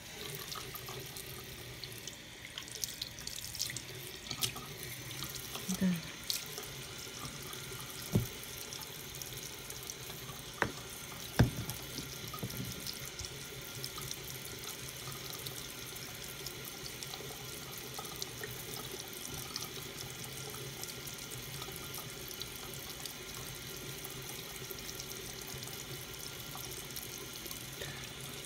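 Tap water running in a steady stream into a ceramic bathroom sink and down the drain. A few sharp knocks come about a third of the way in.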